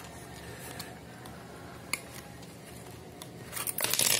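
Small stainless steel manicure tools clicking and clinking against each other and their case as they are handled, with one sharp click about two seconds in and a quick run of louder clinks near the end.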